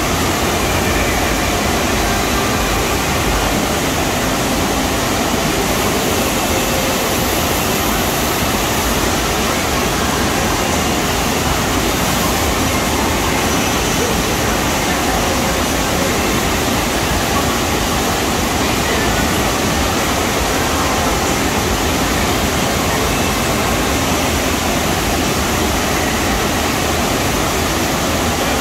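FlowRider wave simulator: a steady, loud rush of pumped water sheeting up the ride surface.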